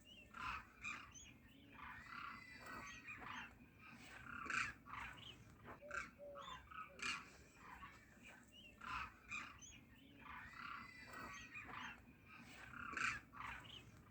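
Flock of demoiselle cranes calling: many overlapping calls, swelling every second or two.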